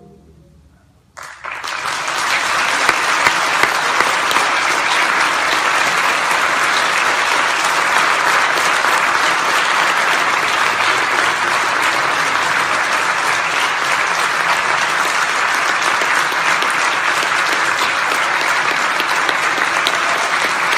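Theatre audience applauding a concert band. The clapping starts suddenly about a second in, once the band's last chord has died away, and then carries on steadily.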